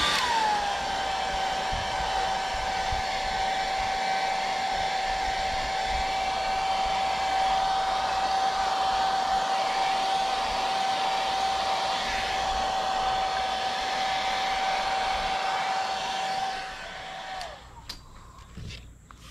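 Conair hand-held hair dryer running steadily, blowing on fresh airbrush paint to dry it, with a steady high whine over the rush of air. The whine drops in pitch just after the start, and near the end the dryer is switched off and the whine dies away.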